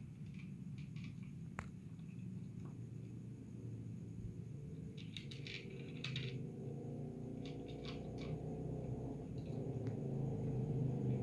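A cat crunching dry kibble from a plastic bowl: clusters of small crisp clicks near the start, about five seconds in and again around seven to eight seconds. A low steady rumble runs underneath and grows a little louder toward the end.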